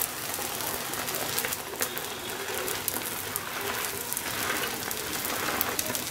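Beaten egg frying in butter in a hot frying pan: a steady sizzle with fine crackles.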